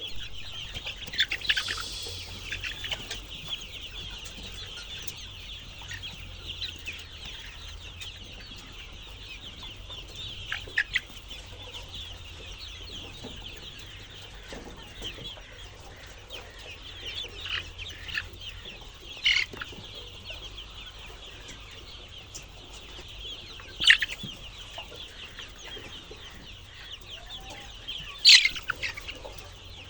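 A flock of chickens clucking, a steady chatter of many overlapping high calls, with a few louder single calls rising above it now and then.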